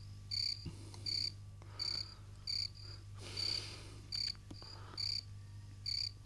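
Night ambience of a small calling creature, a cricket or frog, repeating a short high chirp a little more often than once a second, over a low steady hum.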